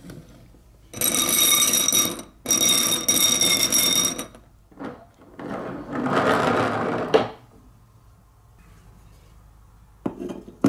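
Glass marbles swirling round against a glass bowl, setting it ringing in two long runs of a couple of seconds each. Then a marble rolls briefly down a wooden wave-shaped track, and there are a few light wooden knocks near the end.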